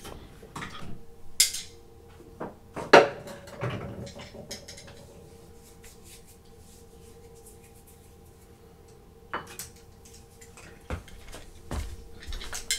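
Scattered clinks and knocks of hand tools, screwdrivers among them, being picked out and handled, with a quieter stretch in the middle and a cluster of knocks near the end. A faint steady hum runs underneath.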